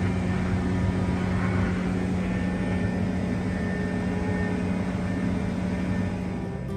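Combine harvester's engine running steadily, a constant drone with a low rumble and an even hum.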